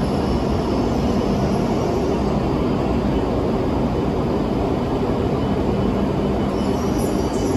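Shinkansen train running alongside the platform: a loud, steady rumble and rush, with faint high squeaks starting near the end.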